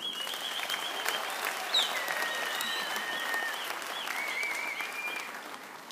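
Conference hall audience applauding, with several long high whistle-like tones over the clapping; it starts abruptly and eases off near the end.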